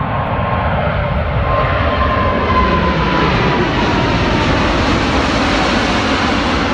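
Boeing 747-8 freighter's four GEnx turbofan engines at climb power as the jet passes close overhead just after takeoff. The jet noise grows gradually louder, and a whining tone slowly falls in pitch.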